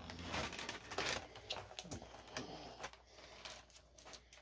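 Clear plastic blister packaging of a Pokémon card box crinkling and clicking as it is handled, in a run of irregular sharp clicks and crackles.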